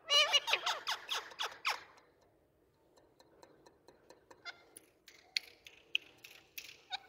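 Indian ringneck parakeet giving a quick run of about eight short, loud chattering calls in under two seconds, then scattered light clicks and a few faint high chirps.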